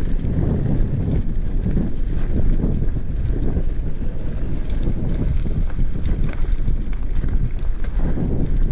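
Wind buffeting the microphone of a camera on a moving mountain bike, a heavy low rumble that rises and falls, with tyre noise on the trail and faint scattered rattles.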